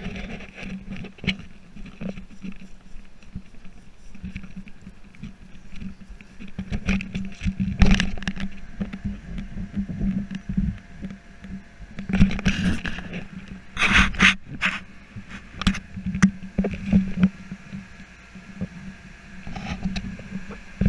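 Handling noise from a hand-held action camera: repeated rubbing, scraping and knocks against its housing, loudest about eight, twelve and fourteen seconds in, over a steady low hum.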